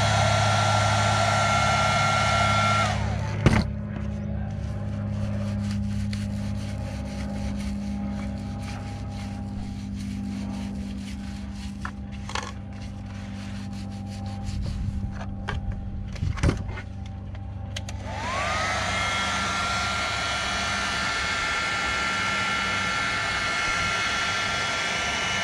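Electric heat gun blowing with a steady whine, heating the plastic of a milk jug, switched off about three seconds in. A quieter stretch follows with a low hum and a few light knocks and clicks. About 18 seconds in it is switched back on, its whine rising as the fan spins up, and it runs steadily again.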